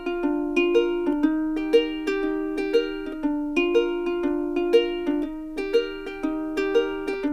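Background music: a gentle plucked-string melody, ukulele-like, with about two notes a second.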